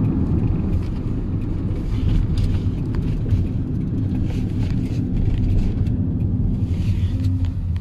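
A car driving along: a steady low rumble of engine and road noise, heard from inside the moving car.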